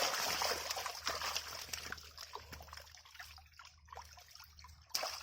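Shallow water splashing and trickling, louder for the first two seconds or so and then fading, with scattered small splashes and a short sharp sound near the end.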